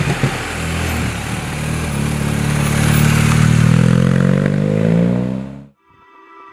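Motorcycle engine accelerating out of a hairpin bend, its note rising in pitch over a few seconds. The sound cuts off abruptly near the end and soft music begins.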